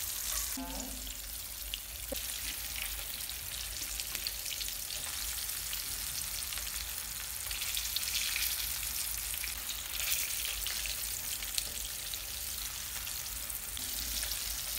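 Flour-dusted mackerel fillets frying in hot vegetable oil in a frying pan: a steady sizzle with fine crackling.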